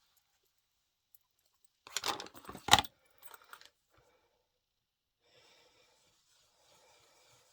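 A short clatter of small hard plastic craft supplies being handled, ending in one sharp click, as an ink pad case is opened. A faint soft brushing follows as a blending brush works ink through a stencil mask onto cardstock.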